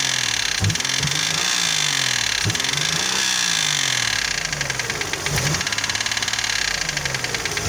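Toyota 1MZ-FE V6 engine revved up and let fall back several times, with a fast metallic knocking that rides on the engine sound. The knock began right after a spark plug change, and the owner has found no damage in the cylinders.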